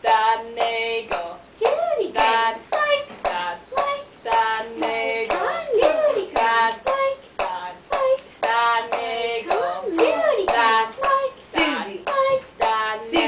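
A high voice singing or chanting without clear words in short, bending phrases, with sharp clicks and hand sounds running through it.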